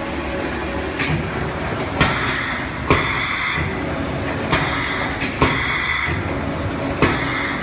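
Pneumatic sealing and cutting machine running: sharp clacks come at irregular intervals of about one a second, several of them followed by a short hiss of air, over a steady machine hum.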